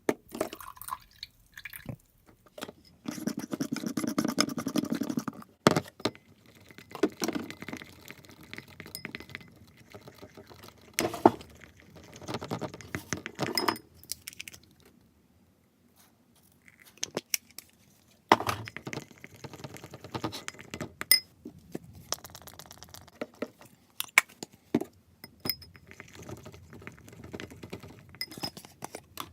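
Homemade slime, stiffened with Tide detergent, being kneaded and squished by hand: irregular wet squelching broken by sharp clicks and pops.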